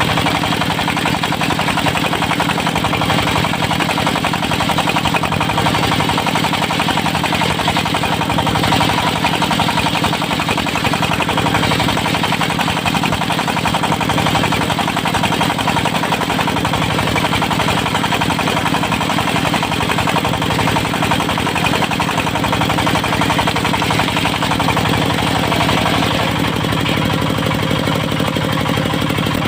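Diesel engine of a portable circular sawmill running steadily at a constant speed, driving the saw blade while teak is cut into thin boards.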